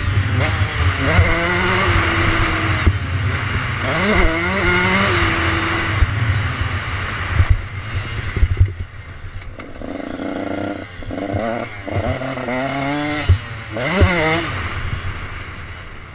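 Dirt bike engine revving hard as it is ridden around a motocross track, its pitch climbing again and again through the gears, with wind rushing over the bike-mounted microphone. About eight seconds in it drops off the throttle among a few sharp knocks, then revs up again.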